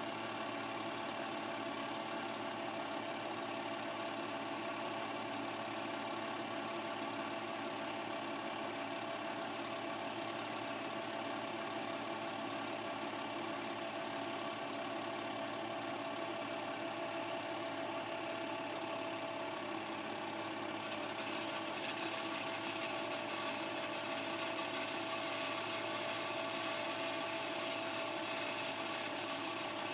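Film projector running: a steady, even mechanical rattle with a constant hum, a little louder in the last third.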